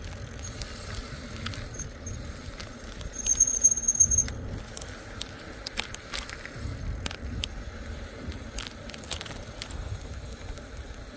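Electric bike rolling downhill, with wind rumbling on the microphone and scattered small rattles and clicks. About three seconds in, a high, steady brake squeal rings out for about a second.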